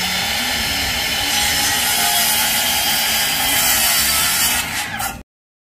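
Cordless reciprocating saw cutting through the end of a pressure-treated wood deck joist, a steady buzzing rasp of blade in timber that cuts off abruptly about five seconds in.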